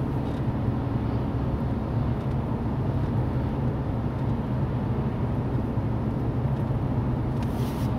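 Audi A3 8P's 1.9 TDI BKC four-cylinder diesel engine running at a steady speed.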